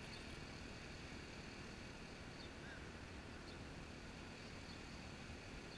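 Faint steady outdoor background noise with a low rumble, and a few short, faint high chirps.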